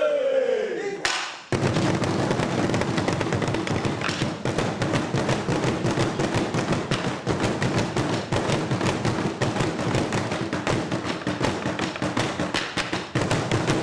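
Ensemble of drummers beating tall wooden drums with sticks: a dense, fast run of strokes that starts suddenly about a second and a half in and keeps going.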